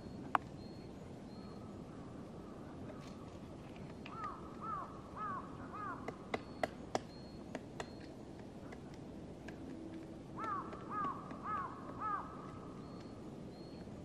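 Black woodpecker chiselling into a tree trunk with its bill: sharp single knocks, clustered about six to eight seconds in. Between the knocks a bird calls in two runs of four clear, downward-bending notes, one near the middle and one about ten seconds in.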